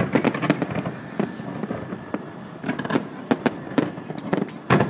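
Aerial fireworks bursting in quick, irregular succession: sharp bangs and crackles one after another, with the loudest bangs clustered near the end.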